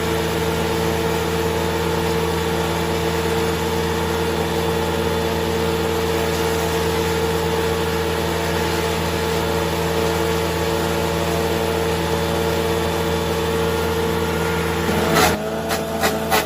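A wood chipper's four-cylinder engine and cutter running steadily at an even pitch. About fifteen seconds in, a burst of clattering knocks breaks in and the engine note rises.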